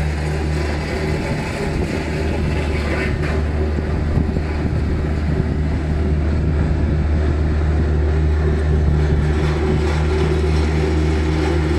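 A vehicle engine running steadily at idle close by: an unbroken low hum with a noisy hiss over it.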